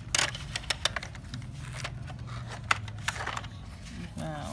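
Plastic toy excavator digging in sand: scattered sharp clicks and scrapes of the plastic arm and bucket working the sand, with a faint low hum for about two seconds in the middle.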